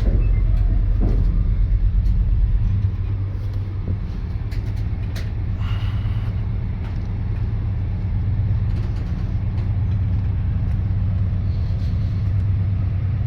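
Diesel locomotive of a log train running with a deep, steady rumble, its lowest hum easing slightly about three seconds in.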